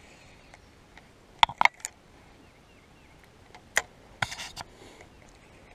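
Sharp clicks and taps from handling a baitcasting rod and reel: three quick clicks about a second and a half in, another near four seconds, then a short cluster of taps.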